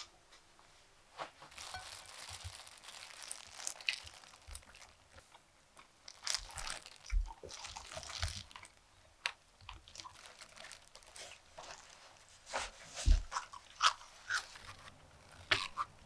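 Close-up eating sounds: irregular crisp crunches of bites and chewing on crunchy food, the sharpest a few seconds before the end.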